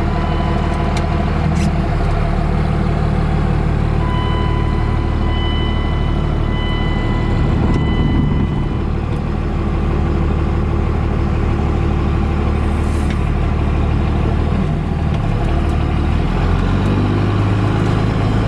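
Truck engine running with a steady low drone that changes pitch about 15 seconds in. A high electronic beeping tone sounds for several seconds, starting about 4 seconds in.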